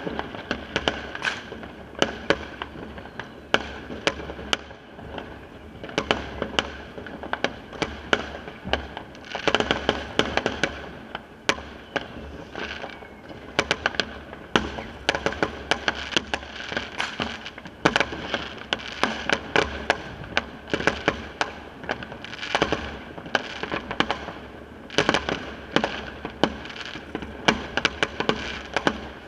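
Many fireworks going off at once: an unbroken, irregular barrage of bangs and cracks, several a second, over steady crackling.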